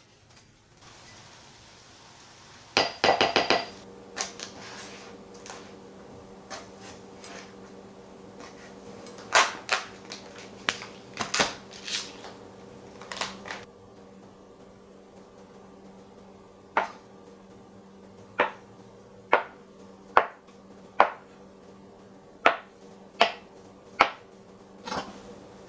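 Kitchenware clatter: utensils and dishes knocking and clinking, first in a quick cluster, then in scattered clicks, then in single sharp taps about once a second, over a steady appliance hum.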